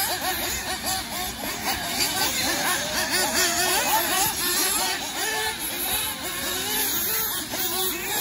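Several 1/8-scale nitro RC buggies racing, their small two-stroke glow engines overlapping as each one revs up and drops off again through the corners.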